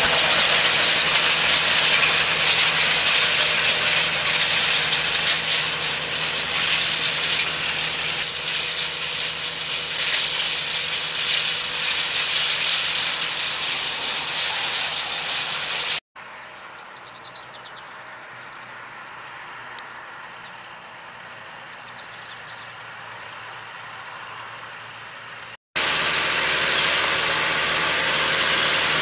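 Farm tractor's diesel engine running steadily under load as it pulls a 17-tine chisel cultivator through the soil, with a dense, hissy mechanical noise. The sound drops suddenly to a much quieter, more distant level about midway, then returns just as loud near the end.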